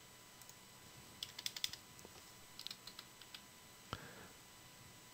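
Faint typing on a computer keyboard: two short runs of keystrokes, then a single louder click about four seconds in.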